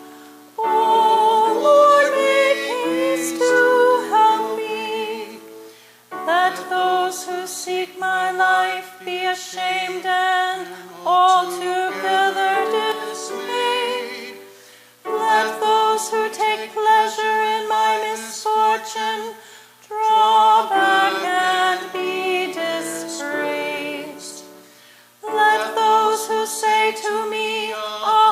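A small church choir of two singers, a man and a woman, sings a hymn in several phrases with short pauses between them.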